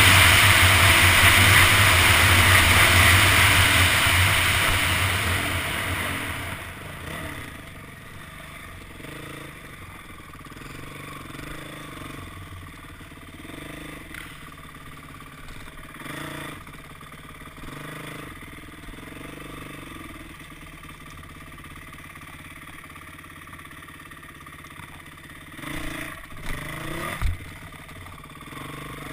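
Dirt bike engine loud at speed for the first five or six seconds, then falling away as the bike slows and runs quietly at low revs. A few sharp knocks near the end.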